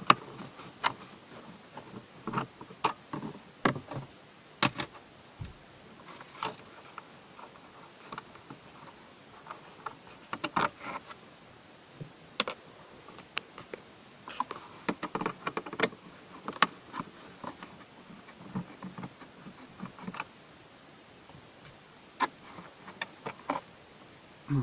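Irregular small clicks, taps and scrapes of a Torx screwdriver working two screws out of a car dashboard's plastic trim panel, metal bit against screw and plastic.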